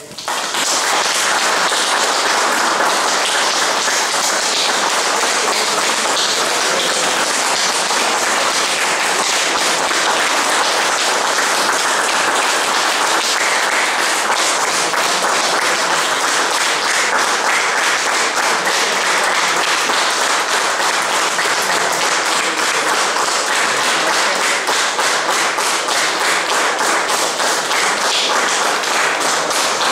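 Audience applauding, a long steady round of clapping.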